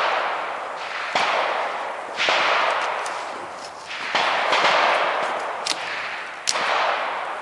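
.22LR rifle shots from several rifles, about six reports at irregular gaps of one to two seconds, each followed by a long echo.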